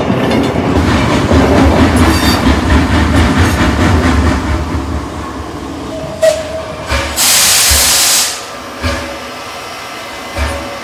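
Train running on rails, a rumbling clickety-clack that eases off over the first five seconds or so, followed a little after the middle by a loud burst of hiss lasting about a second.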